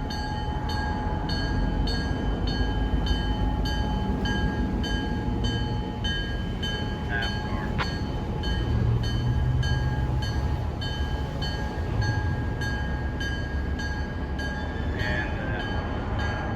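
Diesel locomotive bell ringing steadily at about two strikes a second over the rumble of the GP9U's diesel engine, whose pitch shifts now and then.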